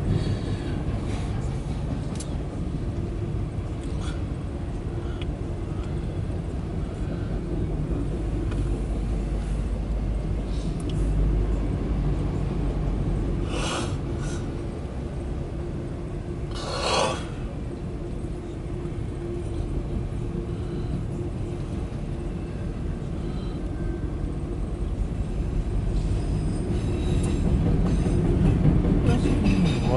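Loaded autorack freight cars of a train rolling past with a steady rumble. Two brief, sharper noises stand out about 14 and 17 seconds in.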